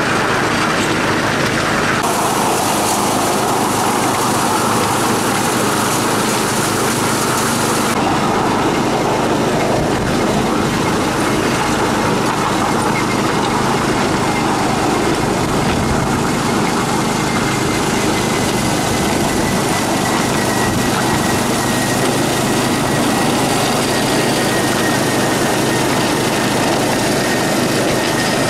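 7¼-inch gauge miniature railway train running along the track with a steady, dense running noise. A faint high whine comes in during the second half and falls slightly in pitch.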